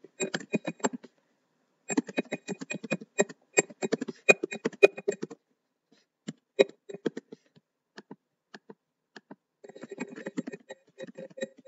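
Typing on a computer keyboard, keystrokes in quick runs. A short run is followed by a pause of about a second, then several seconds of fast typing, then scattered single keystrokes, and fast typing again near the end.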